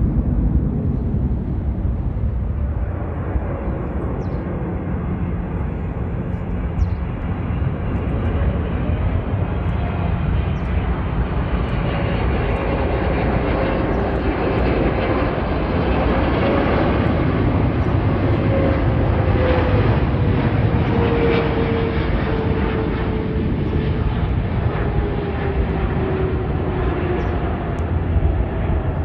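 Jet airliner's engines passing by, the noise building to a peak in the middle with a whine that slides down in pitch as the aircraft goes past.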